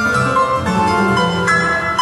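Two pianos playing a fast, dense piece first written for player piano, arranged for two pianos: many short notes overlapping at shifting pitches without a pause.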